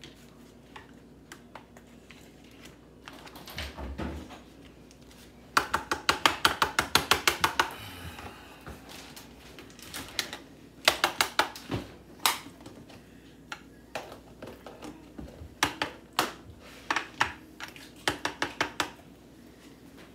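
A kitchen utensil rapidly clicking against a bowl in several bursts of about eight taps a second, as food is mashed and mixed in it.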